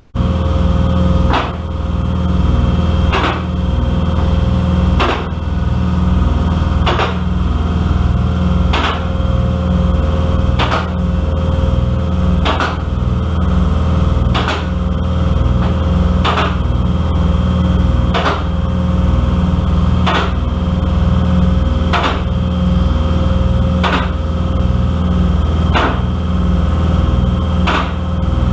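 Electric motor of a vehicle lift running steadily, with a sharp clack about every two seconds as it travels.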